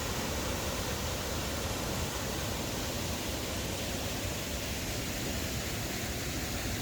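Mountain river cascading over rocks: a steady rush of rushing water.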